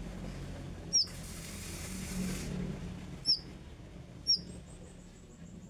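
Konin songbird giving single short, sharp, high chirps, three of them one to two seconds apart, over a low steady hum.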